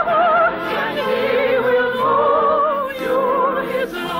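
Operatic singing with a wide vibrato over an orchestra, the voice holding long notes that step between pitches.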